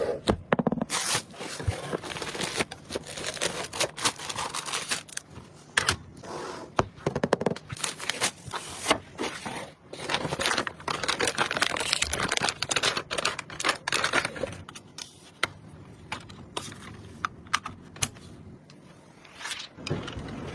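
Close handling noises from assembling a PC: irregular clicks and taps mixed with scraping and the rustle of packaging as parts are handled and fitted.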